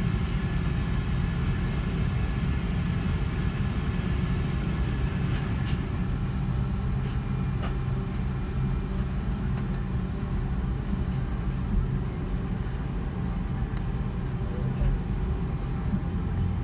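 Airbus A330-300 cabin noise while taxiing: a steady low rumble from the jet engines at idle and the rolling airframe, heard inside the cabin, with a faint steady hum above it.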